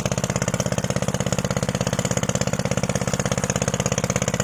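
Engine running steadily with a fast, even chugging.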